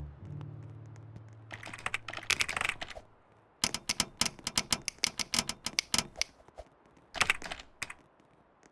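Typing on a computer keyboard: a quick flurry of keystrokes, then a run of separate key presses at a few a second, then another short flurry near the end.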